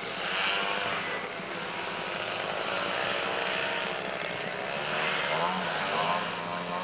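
Engine of a radio-controlled aerobatic model airplane running in flight, its pitch rising and falling with the throttle, strongest in the second half.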